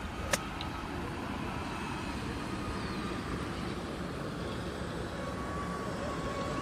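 A single sharp click of a golf driver striking a ball off the tee, about a third of a second in, followed by a steady low outdoor rumble.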